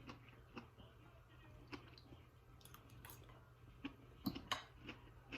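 Faint chewing and small mouth clicks while eating, with a couple of sharper clicks about four seconds in.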